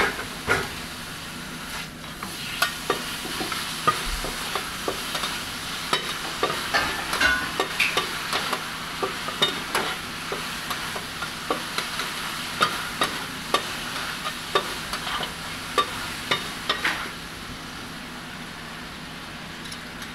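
Beef sizzling on a flat steel teppan griddle while metal spatulas scrape and clack against the plate in quick, irregular strokes; the clatter thins out near the end.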